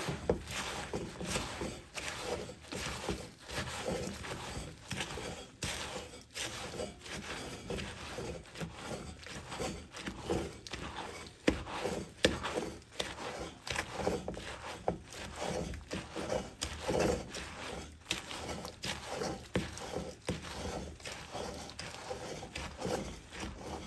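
A spoon stirring a thick, sticky mixture of chopped nuts, fruit and graham cracker crumbs in a mixing bowl: repeated scraping and squelching strokes, about one or two a second, with an occasional sharper knock against the bowl.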